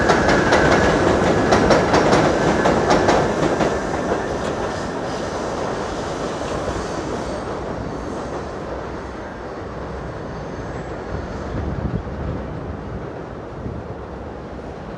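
New York City subway train clattering over rail joints with a rhythmic clickety-clack and a high wheel squeal. From about four seconds in it fades to a lower rumble as it moves away.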